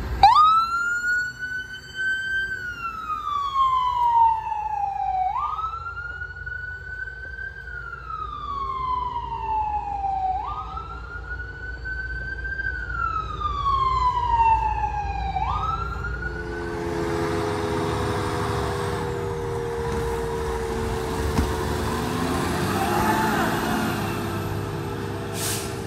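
Emergency vehicle siren in a wail: a quick rise to a high pitch, then a slow fall, repeating about every five seconds for three cycles. About sixteen seconds in the siren stops and a steady vehicle engine drone with road noise takes over.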